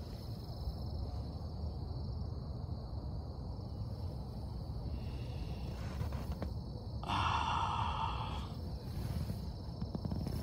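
Low, steady rumble of handling noise on a phone microphone as it moves against tent fabric, with a short breathy rush, like an exhale, about seven seconds in.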